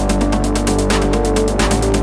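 Electronic background music with a fast, steady beat over held chords; the bass note shifts near the end.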